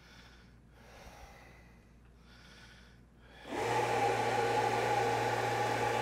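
Faint breathy sounds, then about three and a half seconds in a battery-powered blower fan on a homemade dry-ice cooler air conditioner switches on and runs steadily: a motor hum with a rush of air pushing the fog out through the duct.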